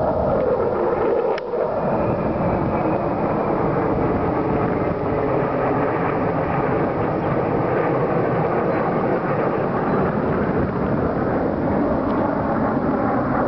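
Jet engines of a formation of four fighter jets flying over, a loud steady roar that drops in pitch over the first couple of seconds.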